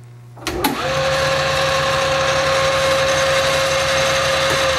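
Hardinge HLV-H precision toolroom lathe starting up: a clunk about half a second in, then the spindle drive and headstock gearing running with a steady whine.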